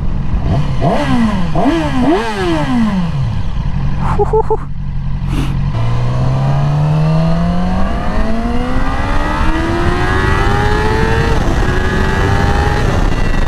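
2020 Yamaha R6's inline-four engine revving under the rider: a few quick throttle blips rising and falling in pitch, a few sharp clicks about four to five seconds in, then one long hard pull with the pitch climbing steadily for about five seconds, a drop at a gear change, and a further climb.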